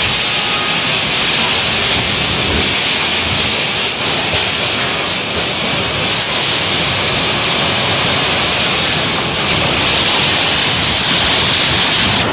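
Strong storm wind making a steady rushing noise, growing a little louder near the end.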